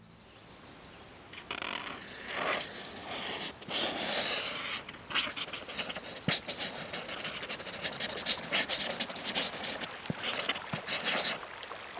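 Crayon scribbling on paper: quick, irregular scratching strokes that start about a second in and stop just before the end.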